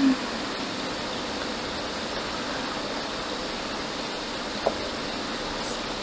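Hot air rework station blowing with a steady hiss. A short knock right at the start and a small tap near the end.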